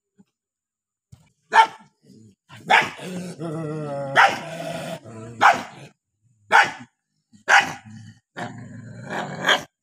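Dogs barking aggressively: about seven sharp barks, roughly one a second, with drawn-out growling between them, a long stretch about three seconds in and another near the end.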